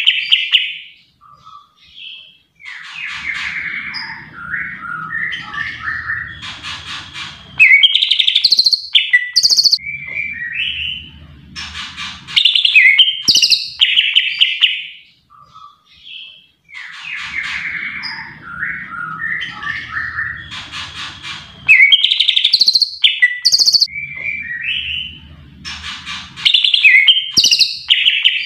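A male greater green leafbird (cucak ijo) singing a loud, varied song of rich whistles, chirps and trills in bursts a few seconds long with short gaps. The same run of phrases comes round twice.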